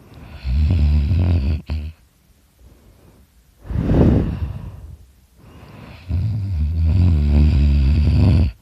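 A sleeping man snoring loudly: two long, low, buzzing snores, with a shorter breathy burst between them.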